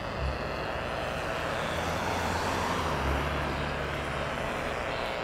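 Steady static from a portable AM radio tuned to 520 kHz, picking up power-line interference noise. A car passes on the road, adding a low rumble from about two seconds in.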